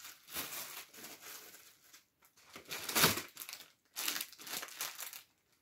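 Foil gift wrap and plastic packaging crinkling and rustling as a present is handled and pulled out, in uneven bursts with the loudest crackle about three seconds in.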